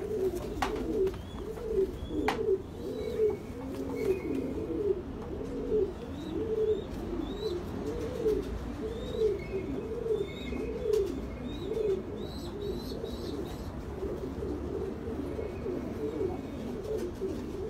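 Pigeons cooing: a continuous run of repeated rising-and-falling coos, overlapping one another, with faint high chirps of small birds above them and two sharp clicks in the first few seconds.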